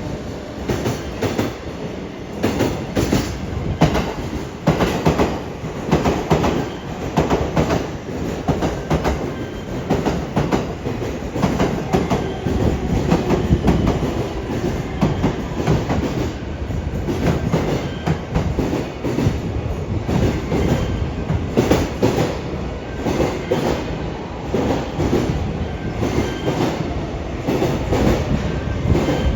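Freight train of Koki container wagons running through a station, with the wheels clattering over the rail joints in a rapid, continuous stream of clicks over a steady rumble.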